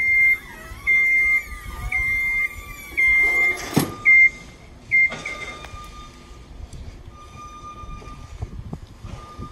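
Genie GR-20 Runabout vertical mast lift's warning alarm beeping about once a second as the platform lowers, with a sharp clack a little before the beeping stops about five seconds in. After that a fainter, steady whine comes and goes as the lift drives off.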